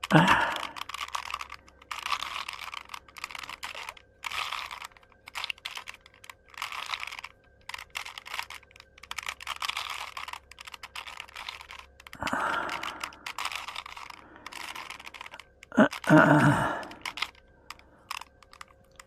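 Rubik's cube being turned by hand: its plastic layers click and rattle in quick runs of twists, broken by short pauses.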